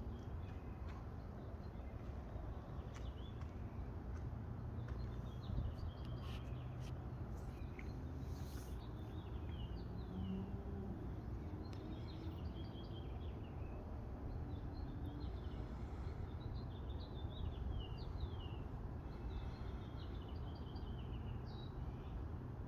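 Birds chirping in short, repeated calls over a steady low rumble of outdoor background noise, with a few scattered sharp ticks in the first several seconds.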